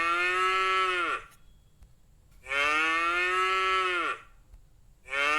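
A cow mooing, three long moos with short pauses between them: one is ending a second in, a full one falls in the middle, and another starts near the end. Each holds a steady pitch and then drops off at its close.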